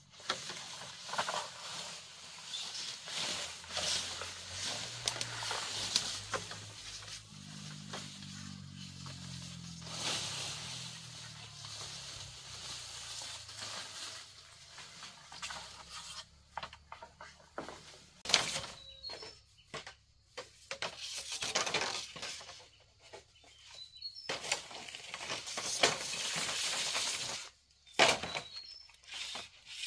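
Dry bamboo leaves and stems rustling and crackling as bamboo poles are pulled through a thicket, with frequent sharp knocks and snaps of the stalks.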